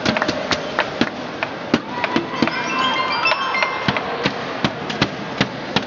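Badminton hall din: frequent sharp knocks and claps, with a run of short high squeaks about two and a half to three and a half seconds in.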